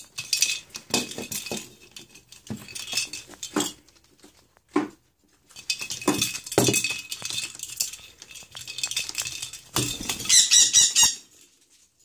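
Hollow plastic cat-toy ball clattering and rattling as a dusky lory pushes and rolls it with its beak, in bursts of quick clicks with a short pause midway and the loudest rattle near the end.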